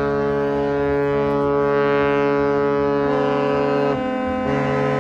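Music of long held, low chords, with the chord changing about three seconds in and again near four seconds; no firework bangs.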